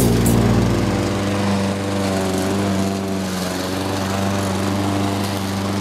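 Gasoline walk-behind lawn mower engine running steadily while mowing grass.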